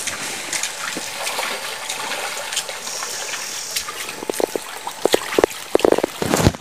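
Shallow stream water trickling and gurgling over stones. Toward the end a quick run of splashes breaks in over the steady flow.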